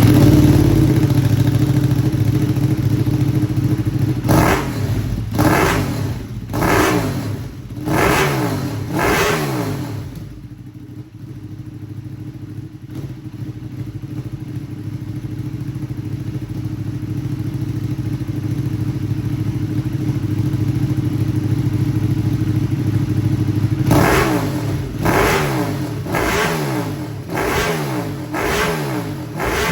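Ducati Panigale V2's V-twin running through a Termignoni SO-02 exhaust: it idles, is blipped in a run of about six quick revs a few seconds in, idles alone through the middle, then is blipped about six times more near the end.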